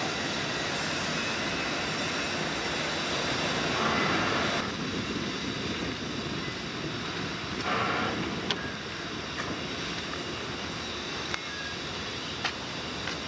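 Steady mechanical noise, a continuous hum and rush of machinery running, with a few faint short clicks in the second half.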